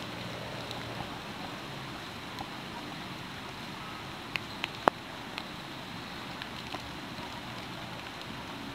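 Steady rain falling, an even hiss, with a few sharp ticks about halfway through.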